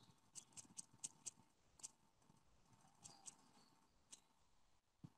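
Faint, irregular clicks of typing, coming in small clusters of two or three, as text is entered into a form on a keyboard.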